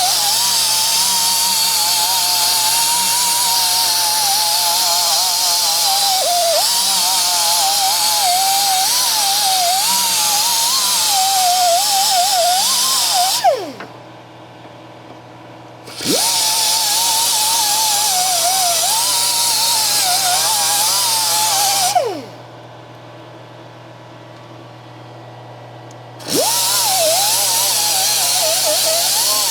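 Power tool motor running in long bursts, its whirring pitch wavering as it loads up, while working loose the exhaust manifold fasteners. It spins down and stops twice for a few seconds, then starts up again.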